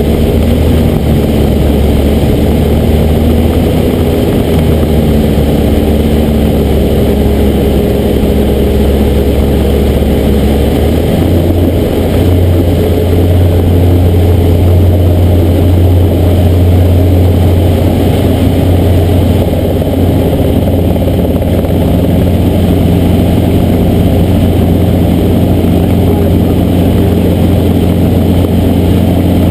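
Light helicopter's rotor and engine noise heard from inside the cabin, a loud steady drone. About eleven seconds in, the low drone steps up in pitch and stays there.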